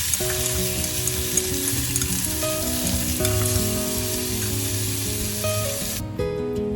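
Hot oil sizzling steadily as food fries, over background music. The sizzling stops abruptly about six seconds in, leaving only the music.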